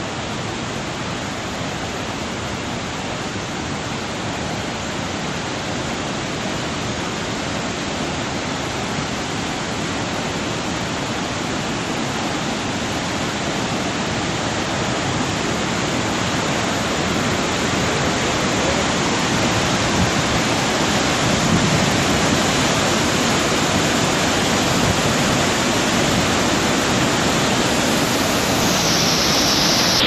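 Steady rush of falling water from the Palovit waterfall, an even noise that grows gradually louder, turning brighter and more hissing near the end.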